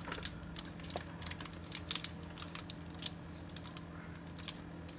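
Irregular light clicks and taps of fingers typing on a smartphone, over a steady low hum.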